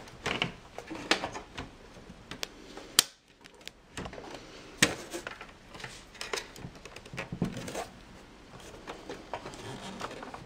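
Clicks, knocks and light scraping from the motherboard tray of an Antec Skeleton PC case as it is worked loose by hand and slid out along its metal rail, with a sharp click about three seconds in and another near five seconds.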